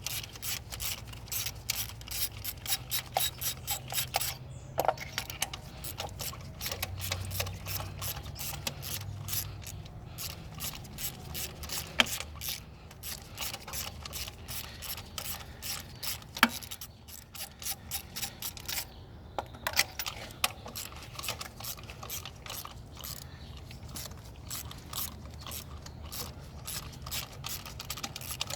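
Hand ratchet wrench clicking in rapid runs of strokes, with a couple of sharper metal knocks partway through.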